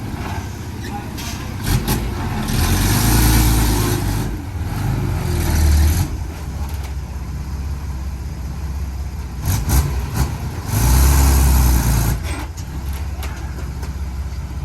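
Heavy diesel earthmoving machinery running, its engine swelling into a deeper rumble three times as it works under load, with a few sharp knocks about two-thirds of the way through.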